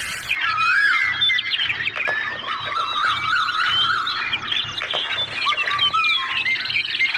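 Many birds chirping and chattering at once: a dense, irregular stream of short warbling calls.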